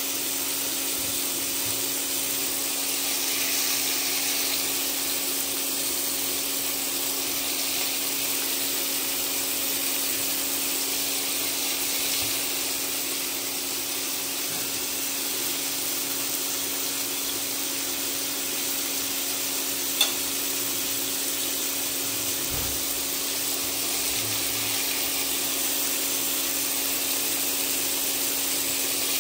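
Slices of pork belly (samgyupsal) sizzling steadily in hot fat on a pan or grill, with a steady low hum underneath. There is one sharp click about twenty seconds in.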